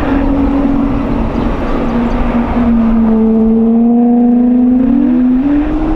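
Pratt & Whitney PW1500G geared turbofan on a taxiing Airbus A220 giving its well-known howl: a loud, steady droning tone over engine rumble. The tone sags lower about two seconds in, gains higher overtones, and glides back up near the end.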